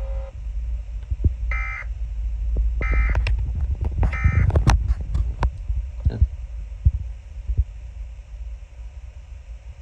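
Emergency Alert System end-of-message signal: three short bursts of buzzy digital data tones about a second apart. Under it runs a steady low hum, with several sharp clicks around the bursts.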